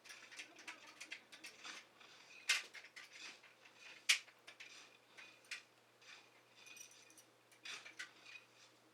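Hand tools clicking and clinking against a bike's old stamped-steel rim brake as it is adjusted: scattered light metallic ticks, with two sharper clacks about two and a half and four seconds in.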